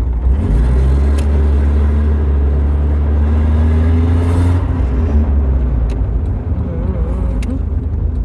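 Nissan 200SX S12 engine accelerating hard, its pitch rising for about four seconds, then dropping as the throttle comes off or the gear changes, and running on at lower revs. It is a test run on a freshly installed distributor, and the engine pulls with sharp throttle response.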